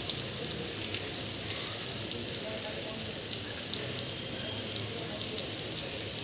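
Steady rain falling outdoors: an even hiss dotted with many sharp little ticks of drops hitting surfaces.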